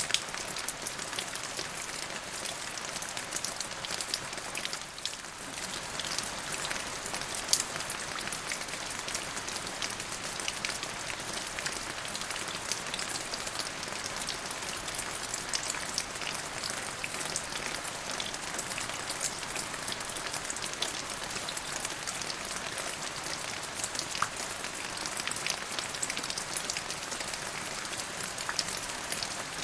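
Steady rain falling on a surface, a dense even hiss of drops with many distinct small drop ticks throughout.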